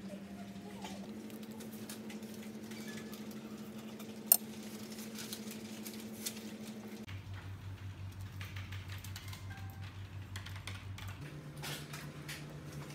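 Kitchen knife cutting and tapping through thin rolled dough on paper: a patter of light, quick taps with one sharp click about four seconds in. Under it runs a low, pulsing drone that steps to a new pitch three times.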